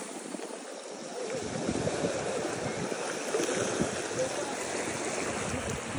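Shallow wave wash running up over the sand around the feet and draining back, a steady rushing hiss that swells a little after about a second and a half. Faint voices in the background.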